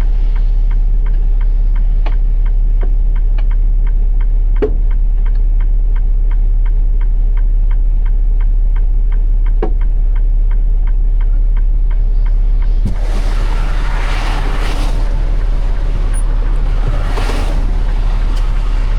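Truck engine idling with a steady low rumble and a fast, even ticking, about three ticks a second. About two-thirds of the way through, a broad rushing noise swells for roughly five seconds and then fades.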